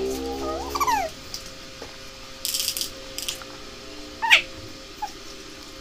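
Two short high-pitched mewing cries, one rising and falling about a second in and a louder falling one a little after four seconds in. Between them come a few crisp crunches of an Oreo cookie being chewed.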